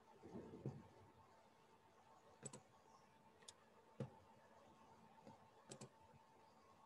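Near silence broken by a few faint clicks of a computer mouse, two of them quick double clicks.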